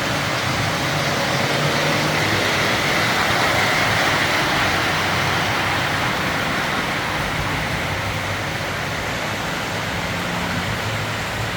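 S- and O-gauge model trains running on the layout: a steady rolling rumble with a low motor hum, unchanging throughout.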